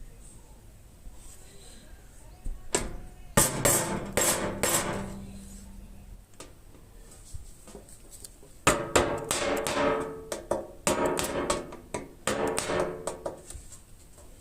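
Hammer blows on thin sheet metal, each strike ringing. A few blows come about three seconds in, then a longer run of blows from about nine to thirteen seconds in.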